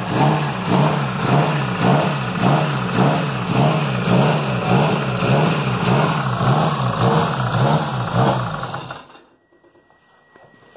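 Freshly built Eagle Talon turbocharged four-cylinder with 280 cams running on its first start, its note rising and falling in a steady rhythmic lope. The engine is switched off about nine seconds in and stops abruptly.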